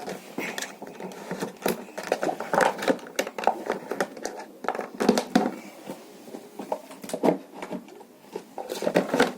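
Plastic Capsule Chix toy capsule being twisted round by hand, with irregular clicking and rattling of its plastic parts.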